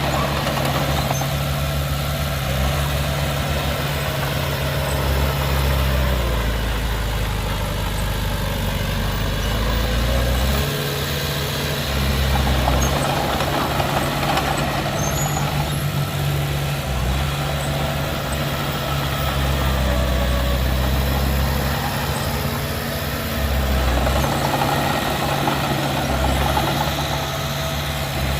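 Heavy diesel machinery running: a small bulldozer and a dump truck. The steady engine hum swells into a heavier low rumble several times, as the load comes on and eases off.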